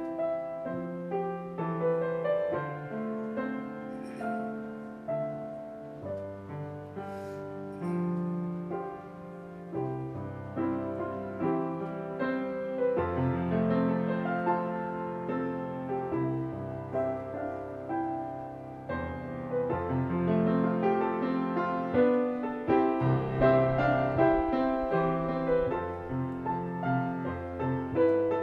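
Yamaha grand piano played solo: an arrangement of a worship song, with a melody and chords over sustained bass notes, growing louder over the last few seconds.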